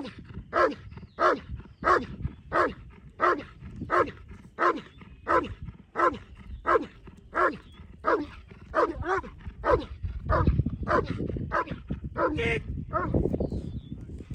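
A German Shepherd barking steadily, about a bark and a half a second, as it sits guarding a trial helper who holds a bite sleeve. The barks turn less regular and stop about twelve and a half seconds in.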